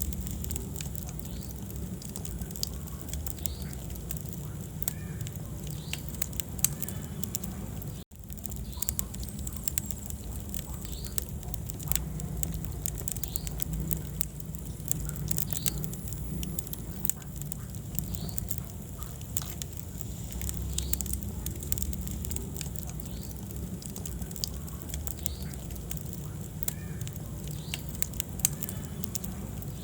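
Wood fire crackling, with frequent sharp pops and snaps over a low, steady rumble of flames. The sound cuts out for an instant about eight seconds in.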